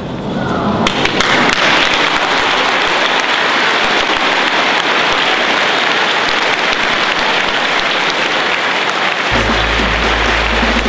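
A large crowd clapping, a dense, even applause that starts about a second in. Near the end, background music with a steady bass comes in.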